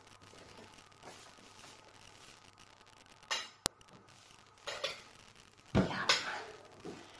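Metal baking pans and oven rack clinking and knocking as a baked cassava cake is taken out of the oven, a few separate clatters with the loudest, a dull knock followed by rattling, about six seconds in.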